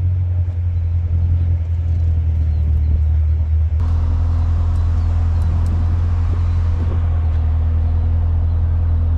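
Car engine running at low revs, a steady low drone that changes abruptly about four seconds in.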